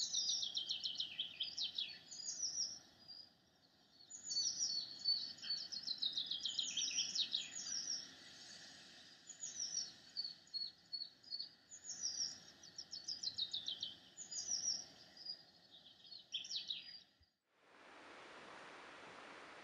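Birdsong: short phrases of quick, high notes that fall in pitch, sung over and over above a faint steady background. It stops abruptly about three-quarters of the way through and gives way to a steady hiss.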